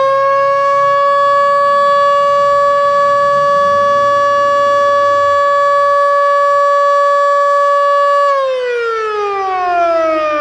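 Federal Signal Model 2 electromechanical outdoor warning siren sounding its weekly test: a steady tone held for about eight seconds, then falling steadily in pitch as the siren winds down.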